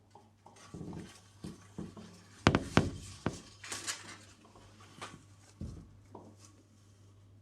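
Fireworks going off outside, heard from indoors: a scattered series of sharp cracks and bangs, the loudest two close together about two and a half seconds in.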